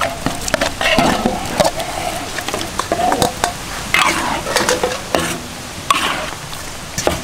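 Metal spatula stirring and scraping in a wok, with sharp irregular clicks of metal on the pan over the steady sizzle of a thick sauce frying.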